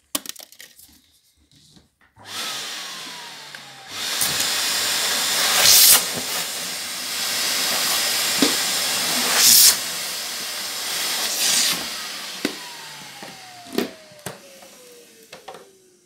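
Vacuum cleaner switched on and running with a loud rushing hiss, surging louder twice. It is then switched off, its motor whine falling in pitch as it winds down.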